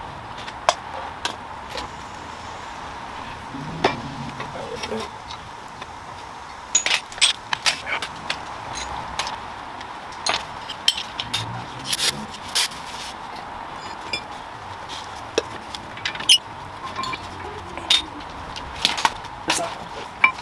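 Hand tools and parts being handled: irregular knocks, clicks and clinks, busier in the second half, over a steady hiss.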